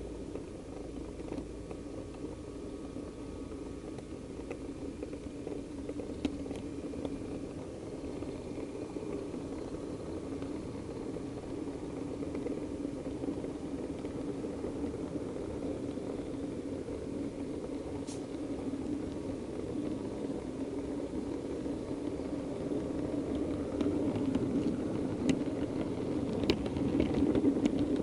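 Model DMU train running along the track, heard from a camera riding on it: a steady hum and rumble of the motor and wheels, with occasional sharp clicks. It grows a little louder near the end.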